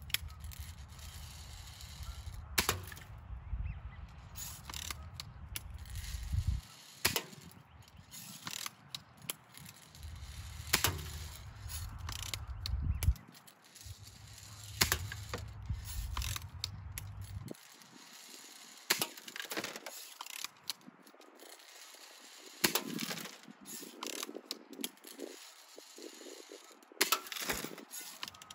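Air gun shots fired at an old microwave: sharp single cracks every few seconds, some with a short clatter of the pellet striking. A low rumble of wind on the microphone lies under the first half and stops about two-thirds of the way through.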